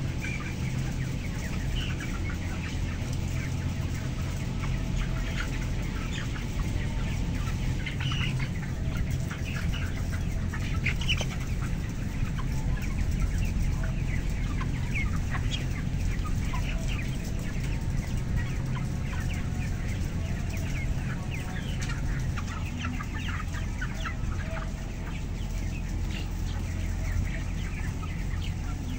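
A large flock of 27-day-old broiler chickens clucking and peeping, many short calls overlapping, over a steady low hum.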